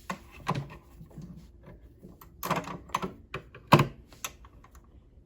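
Irregular clicks and knocks of a small cleaning tool poking and tapping against the parts inside a sewing machine, working at stuck oil and grime.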